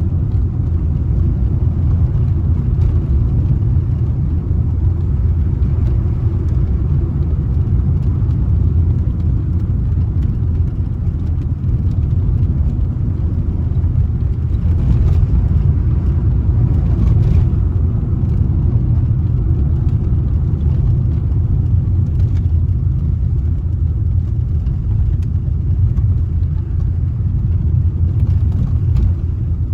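A car driving at steady speed, its engine and tyre noise a constant low rumble.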